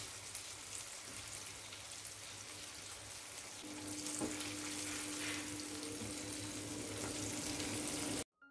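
Flour-battered shrimp deep-frying in hot oil in a wok pan, a steady sizzle as the pieces are stirred with a spatula. A steady low hum joins about halfway through, and the sound cuts off abruptly just before the end.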